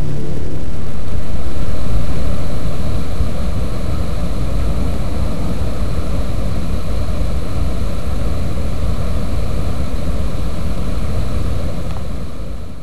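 Water rushing steadily, a loud even noise that fades out near the end.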